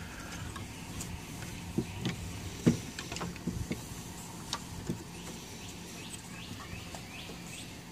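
Hollow green bamboo poles knocking lightly against each other and the wooden tabletop as they are laid together for lashing, about eight short knocks in the first five seconds, with tarred twine handled between them.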